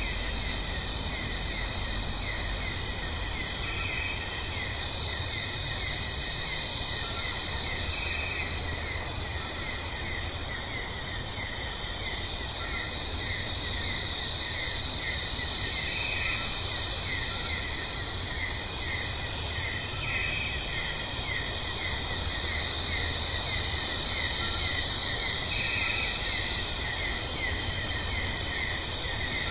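A steady chorus of insects chirring in fast, even pulses, over a low rumble.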